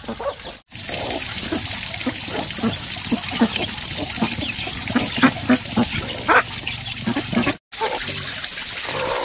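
A flock of chickens and ducks feeding on scattered corn: quick pecks at the grain on the ground and short clucks and calls, over a steady trickle of water. The sound drops out briefly twice.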